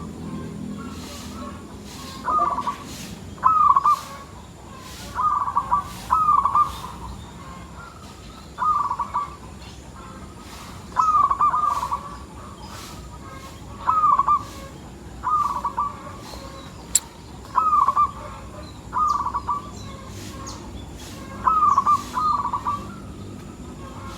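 Zebra dove (perkutut) cooing, with short coo phrases repeated every one to two seconds.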